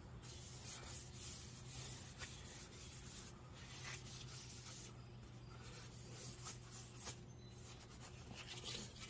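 Faint rubbing of an oil-soaked paper towel over a wooden Springfield 1903 rifle stock as linseed oil is worked into the wood, over a steady low hum.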